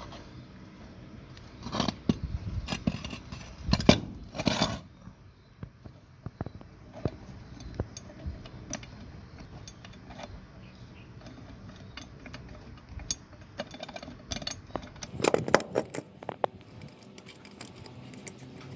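Metal parts clinking and knocking as they are handled: three short bursts of clatter, about 2 s, 4 s and 15 s in, with scattered single clicks between.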